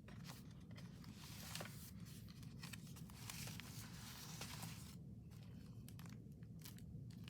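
Faint rustling and crinkling of paper pages being handled, with a few soft clicks, over a steady low room hum; the rustling dies away about five seconds in.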